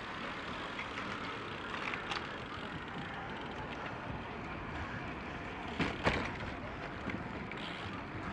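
Bicycle riding over paving and wooden boards: steady tyre and road noise with a few sharp knocks, the loudest about six seconds in.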